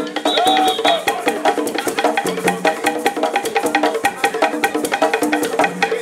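Background music: an upbeat track with a quick, busy rhythm of wood-block-like percussion under a melodic instrument line.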